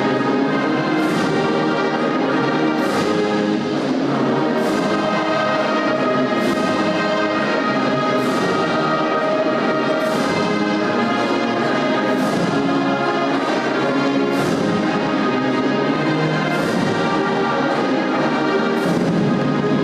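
A large choir singing together in sustained harmony, with a sharp accompanying beat about every two seconds.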